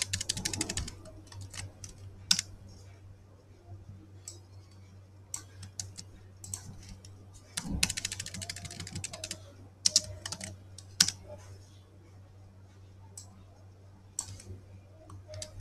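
Typing on a computer keyboard: two quick runs of keystrokes, near the start and about halfway through, with scattered single key clicks between them.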